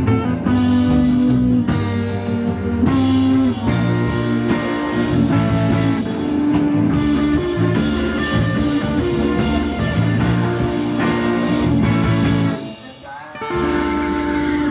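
Live rock band playing: electric guitars, bass guitar and drums, with a singer. The music drops out briefly near the end, then comes back in.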